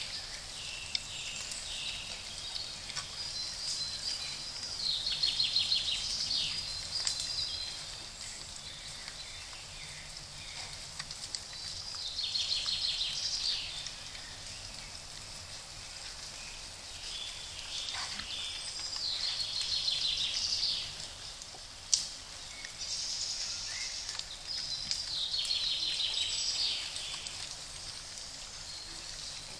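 A songbird singing in separate phrases a few seconds apart, each a fast run of high repeated notes, over a faint steady hiss. One sharp click about two-thirds of the way through.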